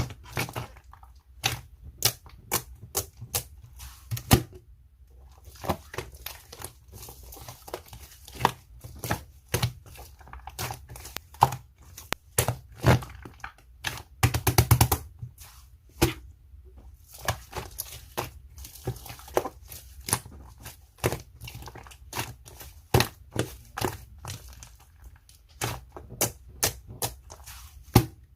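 Slime being squeezed, poked and stretched by hand, making irregular sharp pops and clicks as air pockets burst, with a quick run of crackling about halfway through.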